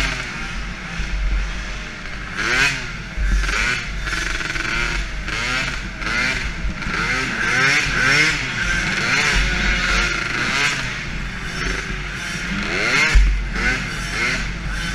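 Small 50cc youth quad engine (DRR 50) revving up and down again and again as it is ridden around a dirt track, heard close from a camera mounted on the quad, with wind hiss on the microphone.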